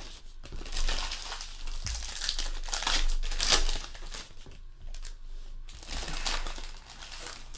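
Foil trading-card pack wrappers being crinkled and crumpled by hands, in irregular rustling bursts with a brief lull about two-thirds of the way through.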